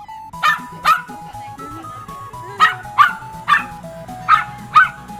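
Miniature pinscher barking, seven short sharp barks in quick pairs and runs, over background music with a light melody.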